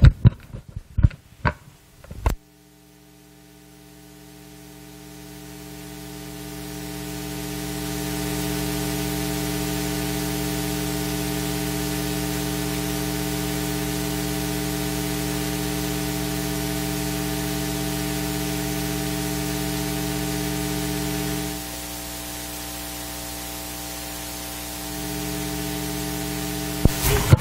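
Steady electrical hum with several pitches over static hiss, from a microphone and sound system with no one talking into it. It swells gradually over about six seconds, holds steady, drops a little about 21 seconds in, comes back up near the end and then cuts off abruptly.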